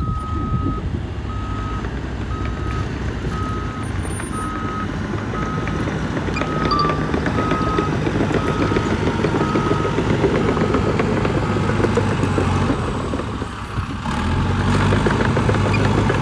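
Diesel engine of heavy earthmoving machinery running, with a back-up alarm beeping about one and a half times a second for most of the first eleven seconds. Near the end the engine runs louder.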